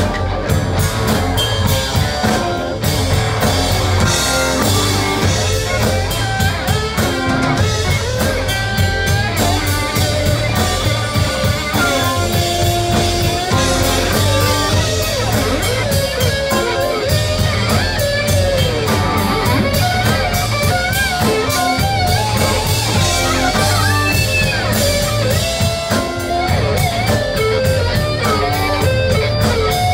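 Live Southern rock band playing: a lead electric guitar with bent, gliding notes over a steady drum kit, bass guitar and rhythm guitar, with no singing.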